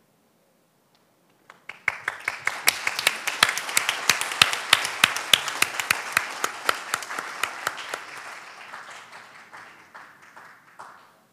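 Audience applauding, starting about a second and a half in, loudest in the first few seconds and then fading away.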